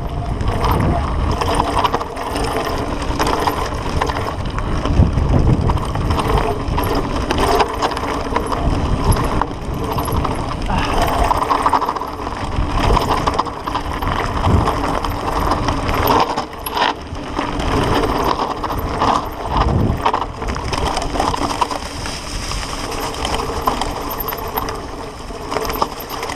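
Canyon Grand Canyon CF mountain bike riding fast down a rough gravel and leaf-strewn trail: tyres crunching over stones, with a constant clatter of the bike rattling over bumps and a low rumble of wind on the handlebar-mounted microphone.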